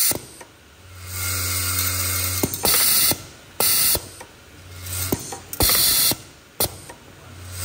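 Vibratory screw and rivet bowl feeder at work. The bowl's drive hums steadily with a buzz and cuts off with a click. Sharp clicks of the pneumatic slide and short hisses of compressed air follow, and the cycle repeats about every three seconds.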